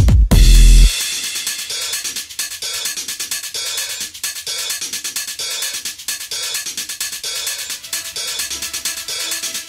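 Electronic background music: a heavy bass hit in the first second, then a lighter stretch with a steady hi-hat and cymbal beat and little bass.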